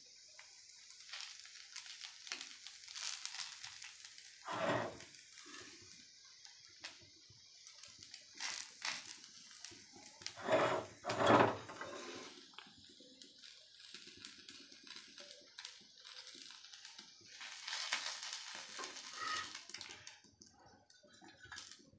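Rava dosa sizzling faintly on a hot tawa, with a spatula scraping against the tawa several times as the dosa is loosened, folded and lifted; the loudest scrapes come about ten to eleven seconds in.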